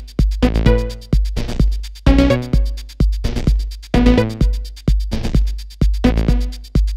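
Electronic rave music: a steady drum-machine kick with deep bass about twice a second, fast hi-hats, and short synth chord stabs between the kicks.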